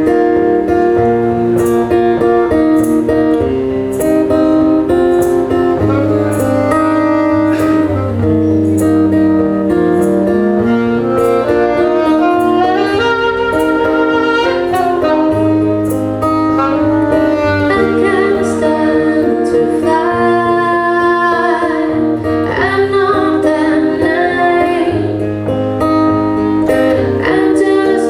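Live song performance: acoustic guitar strummed and picked under a woman's sung melody, continuous throughout.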